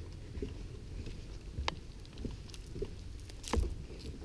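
Footsteps and light knocks on the decking of a floating dock, a few sharp taps standing out over a low, steady rumble.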